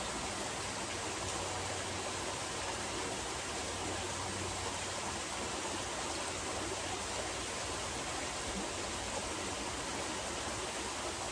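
Steady rush of water from a backyard pool's rock waterfall splashing into the pool.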